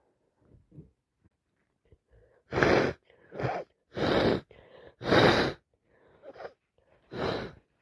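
A woman sneezing four times in quick succession from a cold on top of hay fever, starting about two and a half seconds in, with quick breaths between the sneezes.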